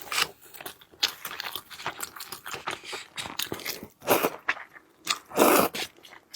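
Close-miked mukbang eating: a person biting and chewing food with crunching and wet clicking mouth sounds, and louder bites about four and five seconds in.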